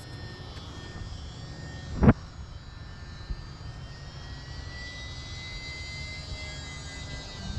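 Faint thin whine of a Champ S+ micro RC plane's electric motor flying high overhead, rising slightly in pitch past the middle, under a steady low rumble of wind on the microphone. A single sharp thump about two seconds in.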